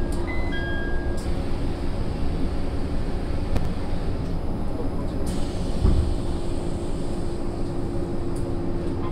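Interior sound of a Sendai Airport Railway SAT721-series electric train: a steady hum over a low rumble. A falling two-note chime sounds in the first second, and a short low thump comes about six seconds in.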